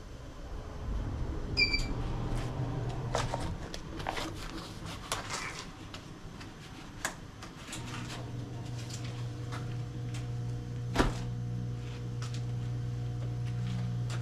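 Mayflower wheel balancer running with a steady low hum while it checks a motorcycle wheel, which still needs more weight. There is a short beep about two seconds in, scattered clicks and knocks of handling, and one sharp knock near the end.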